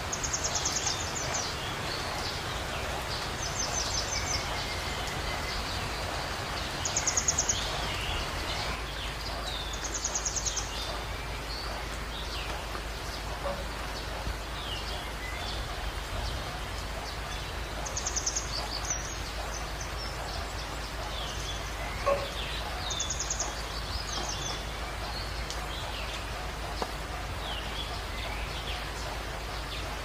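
Wild birds chirping and calling over a steady hiss of heavy rain, with a short, high trill repeating every few seconds among many briefer chirps.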